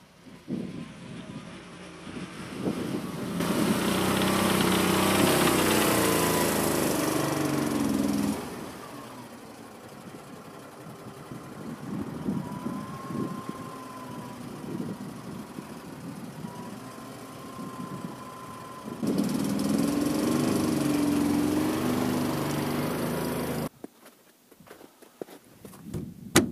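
Small two-cylinder Lifan engine of a homemade articulated karakat driving over snow. The engine note rises and falls, loud twice as the machine comes close and fainter between. It cuts off suddenly near the end, followed by a few clicks.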